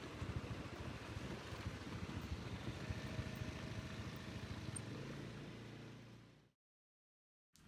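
Vehicle engine and road noise running steadily with a fast low rumble, fading out about six seconds in to a second of silence.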